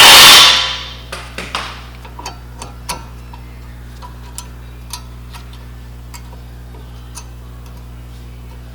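New brake pads being fitted into the caliper bracket. It opens with a loud, brief rush of metallic noise lasting under a second, then scattered light metallic clicks and taps.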